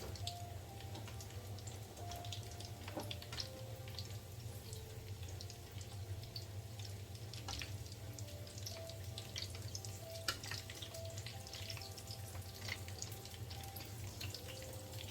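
Samosas deep-frying in hot cooking oil: a steady sizzle with many small scattered crackles and pops.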